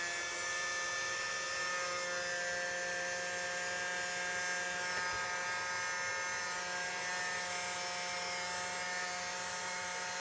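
The built-in fan of a cheap 8032 SMD hot air rework gun running steadily at speed: a whine of several steady tones over a light rush of air.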